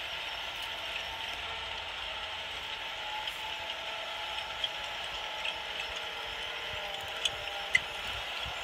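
Small electric drive motor and plastic gearbox of a remote-controlled toy tractor whining steadily as it drives across sand, its pitch wavering slightly, with a few light clicks.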